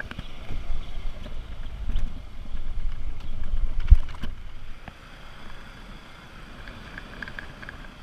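Wind rushing and buffeting over the camera microphone on a moving motor scooter on a rough, potholed road, with one loud knock about four seconds in. About five seconds in it drops to a quieter, steadier wind.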